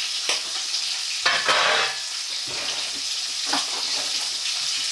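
Salmon frames frying in butter in a frying pan, sizzling steadily. Several short scrapes and knocks as the pieces are turned over, the loudest a little over a second in.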